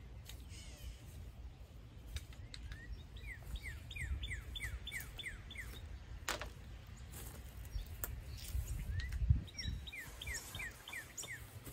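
A bird calling in two quick runs of short, downward-slurred chirps, about four a second, over a low outdoor rumble, with a sharp click about six seconds in.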